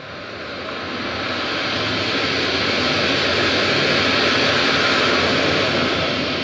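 Recorded soundscape from the performance's soundtrack, played over the hall's speakers: a broad rushing noise that swells for about four seconds and then fades.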